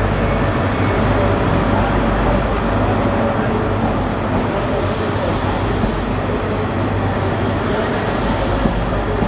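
ScotRail HST's Class 43 diesel power car running as the train moves past along the platform, followed by its coaches rolling by, a steady loud hum throughout.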